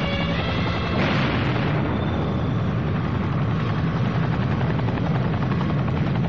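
Sound effect of a helicopter's rotor chopping steadily. About a second in, an explosion goes off and dies away over a second or so: a motorboat blowing up.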